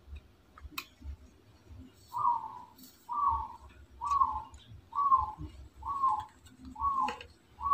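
A bird calling in the background: a short, slightly falling note repeated about once a second, starting about two seconds in.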